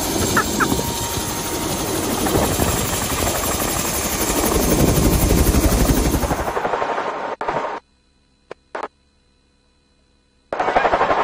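Helicopter close by, its rotor chopping rapidly and getting louder for a few seconds before the sound cuts off abruptly. After that it is mostly quiet with a couple of short noises, then loud again near the end.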